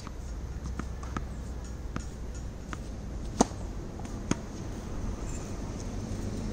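Tennis balls being hit with rackets and bouncing on a hard court: scattered faint pops, with two sharp, louder pops, the first a little past three seconds in and the second under a second later.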